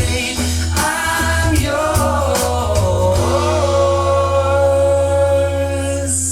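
A song playing through Dali Zensor 1 AX wireless speakers: a singer over a steady bass, settling into one long held note from about three seconds in.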